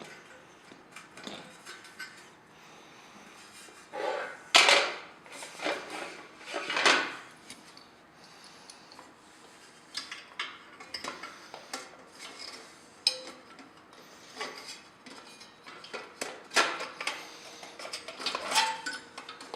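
Plastic and metal parts of an exhaust fan being handled: irregular clicks, knocks and rattles, with a louder burst of clattering a few seconds in.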